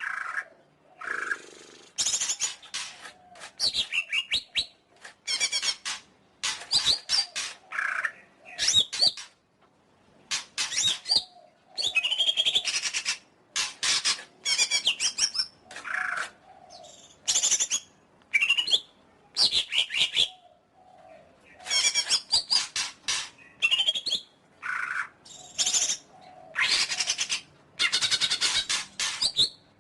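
Cucak ijo (green leafbird) singing a fast, varied song of whistled and chattering phrases that rise and fall in pitch, delivered in quick bursts with short pauses between them.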